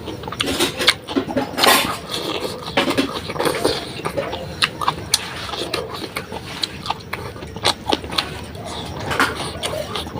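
Close-up eating sounds of a person eating spicy beef curry: chewing and wet mouth smacking, with many short sharp clicks at an uneven pace.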